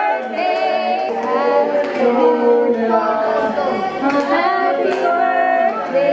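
Several voices singing a birthday song together, with hands clapping along.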